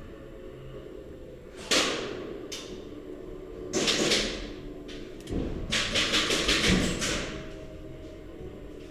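Airsoft guns firing: a shot about two seconds in, another near four seconds, then a rapid burst of about nine shots in just over a second, each shot with an echoing tail.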